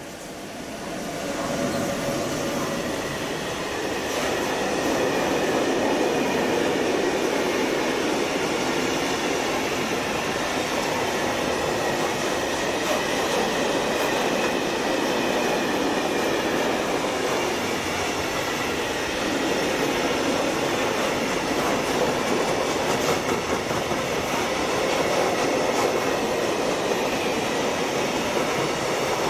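A freight train passing: the electric locomotive goes by about a second in, then a long string of open freight wagons rolls past steadily, wheels running on the rails.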